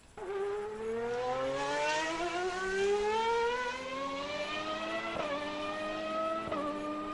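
Motor vehicle engine accelerating, its pitch rising steadily for about five seconds, then dropping twice, about five and six and a half seconds in, as it shifts up through the gears.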